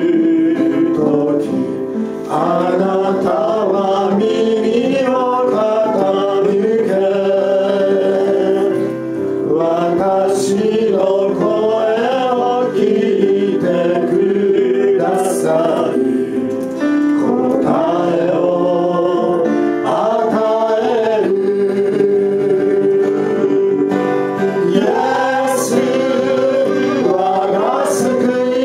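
A small gospel group singing a song into microphones over instrumental accompaniment, with long held notes.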